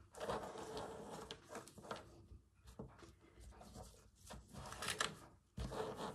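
Quiet handling sounds: fabric and ribbon rustling with scattered small clicks and taps as beads and cotton reels are slid along a string.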